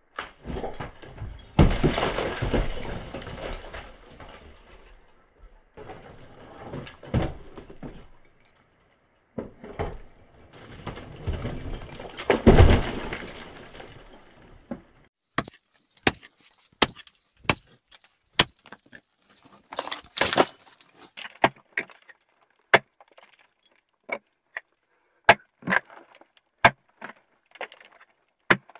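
A pick breaking out rock: the first half is blows followed by long crumbling of loosened rock and rubble sliding down, loudest twice. About halfway it changes to a run of sharp, separate strikes of the pick's head on the rock, one or two a second.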